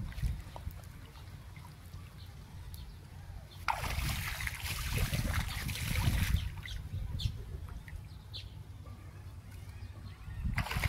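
Water splashing and sloshing as a cast net is hauled in by hand through shallow water. The splashing is loudest for a couple of seconds in the middle, with light trickling and dripping around it.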